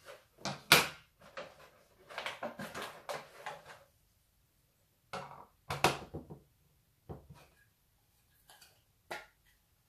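Hard plastic parts of a figure display stand and its packaging handled on a tabletop: a series of sharp clicks and knocks, the loudest about a second in, with a stretch of rustling between them.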